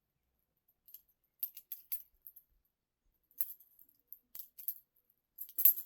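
Steel Smith & Wesson handcuffs handled after the escape: light metallic clinks and jingles of the chain and ratchets in several short clusters, the loudest near the end.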